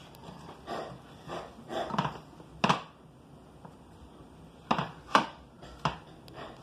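About eight short knocks and thumps at uneven intervals as biscuit dough is pressed and smashed by hand into a pan, with a pause near the middle.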